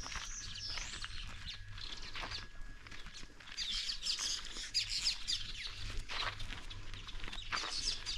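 Wild birds chirping and singing, densest about four seconds in and again near the end, with footsteps on a dirt path.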